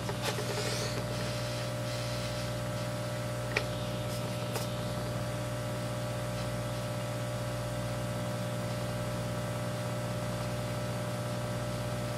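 Steady electrical hum with a fan-like hiss from the soldering bench equipment. A short crackling sizzle comes under a second in as the soldering iron drags solder through flux on the connector pads, followed by two faint ticks a few seconds later.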